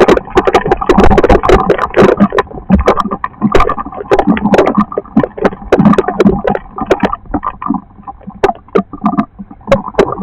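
Storm precipitation pelting a hard surface close to the microphone: a dense, irregular patter of sharp hits that thins out a little about three-quarters of the way through.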